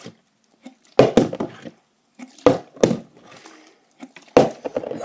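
A partly filled plastic water bottle being flipped and landing with hard knocks, four in all, two of them close together as it hits and tips over.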